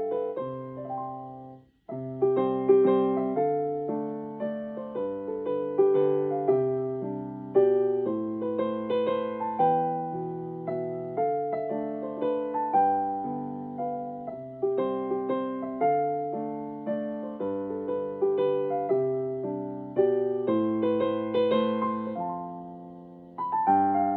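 Instrumental music with piano chords and bass over a melody of struck, decaying notes. It cuts out briefly about two seconds in, then carries on.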